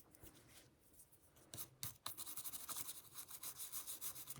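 A toothpick scraping old adhesive off an iPhone 7's rear housing around the camera opening to clean it for new adhesive. A few scattered scratches, then quick back-and-forth scratching at several strokes a second from about two seconds in.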